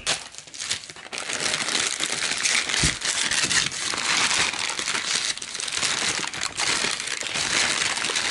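Tissue wrapping paper crinkling and rustling as it is handled and unfolded by hand, a dense, irregular crackle starting about a second in.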